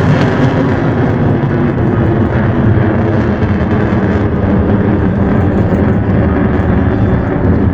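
Jet aircraft engine running loud and steady, a dense continuous rush without a break.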